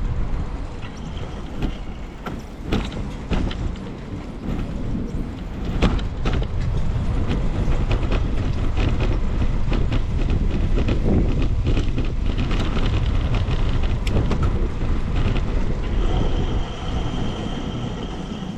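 Wind buffeting the microphone and a bicycle rattling over the road surface, with a low traffic rumble and many sharp clicks. A steady high-pitched squeal comes in near the end.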